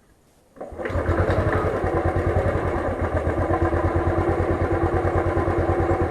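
Royal Enfield Thunderbird's single-cylinder engine starting up a little under a second in, then idling with a steady, even beat.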